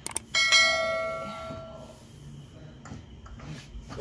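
A single bell-like chime: two light clicks, then one strike about half a second in whose ringing tones fade away over a second or two.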